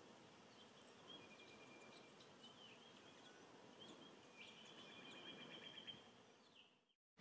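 Faint bush ambience with small birds calling distantly: short whistled notes and chirps, and a brief rapid trill about four and a half seconds in. It fades out near the end.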